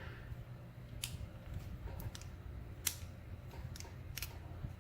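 Scattered sharp metallic clicks and handling rumble from a lock cylinder being gutted, its plug worked out of the housing with a follower.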